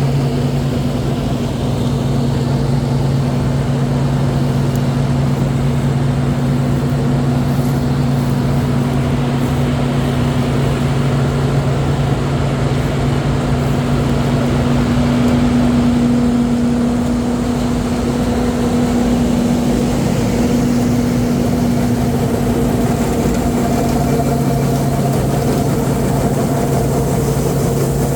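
Diesel engine of farm harvest machinery running steadily with a low hum. The lowest part of the hum drops away for a few seconds about two-thirds of the way through, then returns.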